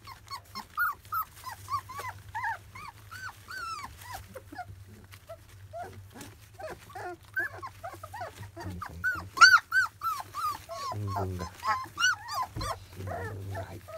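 Labrador retriever puppies, 25 days old, whining and squealing in a constant run of short high calls that rise and fall in pitch, several a second, with the loudest yelps about nine and a half seconds in. They are crowding and jostling at the food dish, which the owner wonders means the food was not enough.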